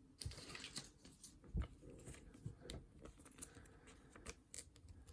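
Faint rustling and light clicks of trading cards and their packaging being handled, as scattered short ticks and scrapes.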